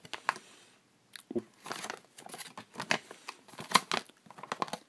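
A folded glossy paper leaflet being unfolded and handled, with short, irregular rustles and crinkles of the paper.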